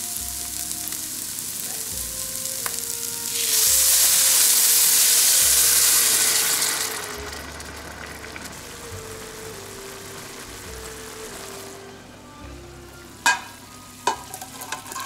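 Diced vegetables sizzling in a hot nonstick frying pan. About three and a half seconds in, stock poured into the pan sets off a much louder hiss for about three seconds, which dies down to a quieter simmer. Near the end, two sharp clanks as the pan is tipped against a stainless steel pot.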